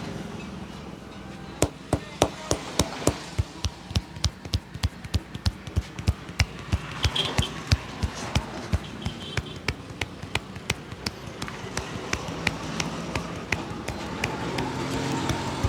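Rhythmic hand slaps and taps of a barber's head massage, about three sharp strikes a second starting about a second and a half in, quickening and softening later on.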